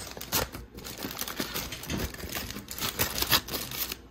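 Heavy-duty aluminium foil crinkling as hands pull it open around baked ribs: an uneven run of crackles, loudest about three seconds in.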